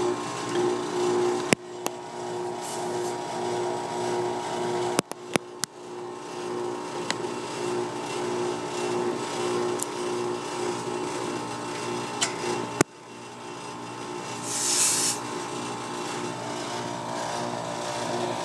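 Air conditioner condensing unit running steadily, compressor and condenser fan humming with a constant tone, back in operation on a newly fitted dual run capacitor after the old one tested bad. Several sharp clicks punctuate it, and a brief high hiss comes about fifteen seconds in.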